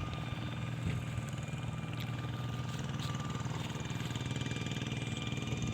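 A small engine running steadily, a low even hum with a fast regular pulse.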